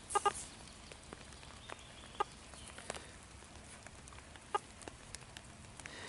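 A few faint, short bird calls, brief clucking notes spaced a second or two apart, over a quiet background.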